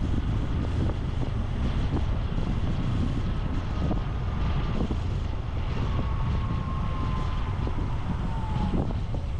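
Honda Super Cub C125's single-cylinder engine running while riding, with heavy wind rush on the microphone. A faint high whine comes in partway through, drifts slightly lower in pitch and stops near the end.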